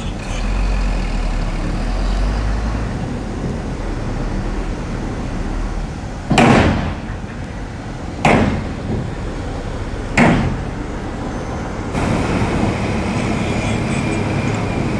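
Heavy diesel earthmoving machinery running steadily, with three loud bangs about two seconds apart near the middle.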